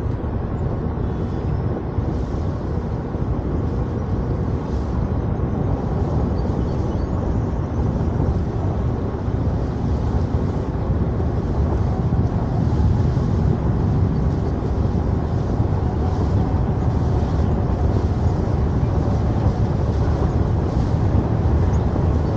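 Steady low rumble of a tour boat under way on calm water.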